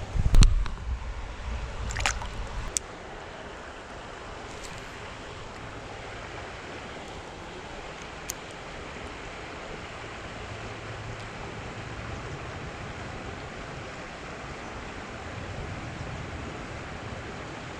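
Steady rush of running creek water. For the first few seconds there are low buffeting thumps of wind or handling on the microphone and a couple of sharp clicks.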